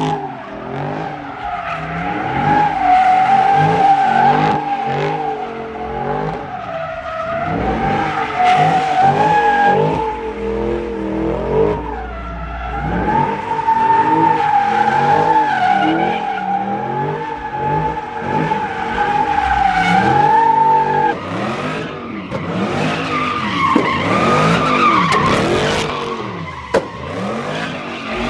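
A car doing a burnout on asphalt: its tyres screech in a steady high squeal over the engine revving up and down. About two-thirds of the way through, the steady squeal breaks off and gives way to the engine revving up and down with shorter tyre chirps.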